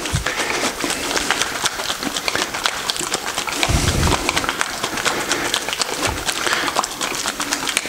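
A 400 ml can of two-component (2K) door-frame expansion foam being shaken hard, its mixing ball rattling in a fast, steady clatter. There is one dull thump a little before halfway through.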